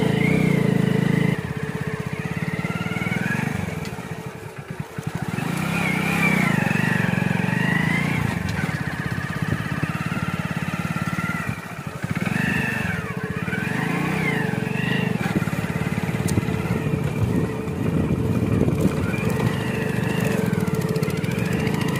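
Small motorcycle engine running as the bike rides along a dirt track, with wind and road noise. The engine eases off briefly twice, about four and twelve seconds in.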